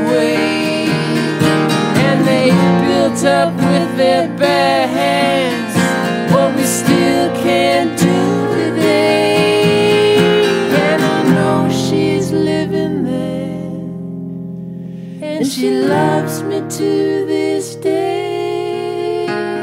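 Acoustic guitars playing an instrumental break: a lead guitar picks a solo line full of bent notes over a strummed rhythm guitar. A little past the middle, one chord is left ringing and slowly fading for a few seconds, then the picking starts again.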